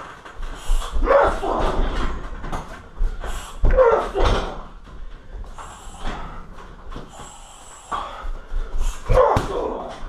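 Shin roundhouse kicks landing on a 60 kg heavy bag, each heavy thud paired with a loud grunted shout of effort from the fighter. There are three main strikes, about a second in, around four seconds in and near the end.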